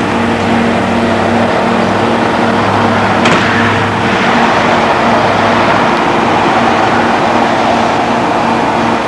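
A loud, steady mechanical drone with a constant low hum, and a single sharp click about three seconds in.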